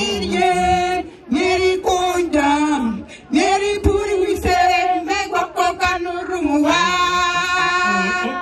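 Group of women singing in the local language, the lead voice into a microphone, in short phrases with held notes and a long held note near the end.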